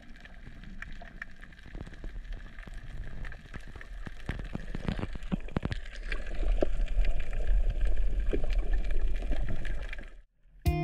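Underwater sound picked up by a diving camera: a dense scatter of sharp clicks and crackles over a low water rumble. The rumble grows louder about six seconds in, and everything cuts off just before the end.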